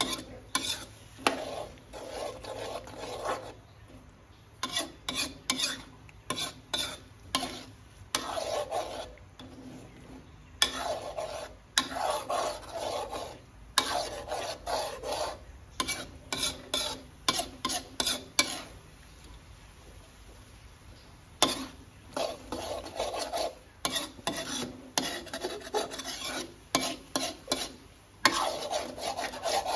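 Metal spatula scraping and knocking against a steel wok as sliced onions are stir-fried in a thick curry sauce with egg. It comes in runs of quick strokes with a few short pauses; the stirring is kept going so the egg does not stick to the pan.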